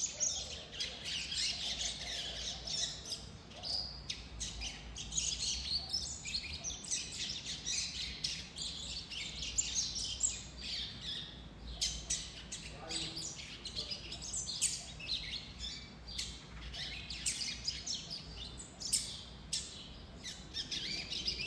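Juvenile brown-plumaged double-collared seedeater (coleiro) giving its churiado: a continuous rambling chatter of quick high notes. This is the practice song of a young bird still learning to sing.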